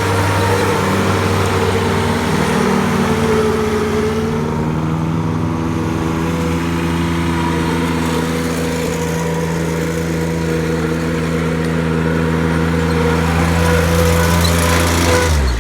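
Woods 6215 diesel mower running steadily with its PTO engaged, the new PTO drive belts making no squeal. Just before the end the engine speed drops quickly.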